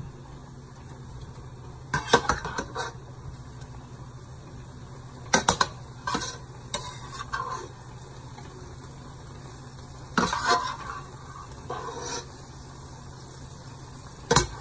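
A slotted metal spatula scraping and clinking against a stainless steel skillet in short bursts every few seconds, as cooked chicken pieces are scooped out of the pan. A steady low hum runs underneath.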